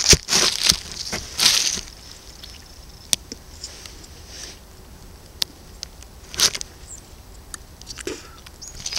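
Plastic snack wrapper crinkling and crackling as a boot sole presses and grinds it against a wooden board. The crackles come in short bursts, two in the first two seconds and another about six and a half seconds in, with single crackles between.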